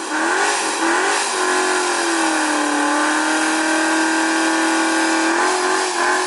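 Car engine revving: two quick blips in the first second or so, then held at high revs with a steady pitch, easing a little near the end.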